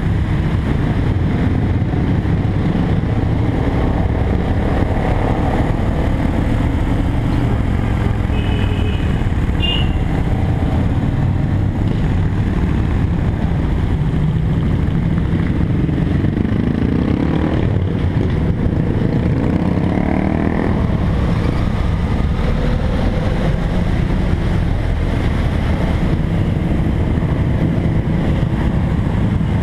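A BMW F800GS parallel-twin motorcycle riding steadily in traffic, its engine mixed with constant wind rush on the helmet or body-mounted camera. The engine pitch climbs twice past the middle as the bike accelerates. Two short high beeps come about nine seconds in.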